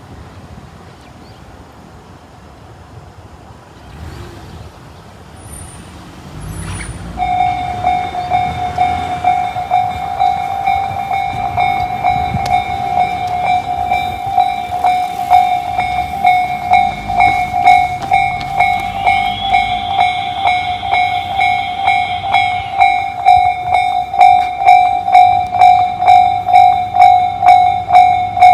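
Japanese railway level-crossing warning alarm, the JR standard electronic tone, starting about seven seconds in and ringing in fast, even pulses that grow louder towards the end. Before it, a low road-traffic rumble.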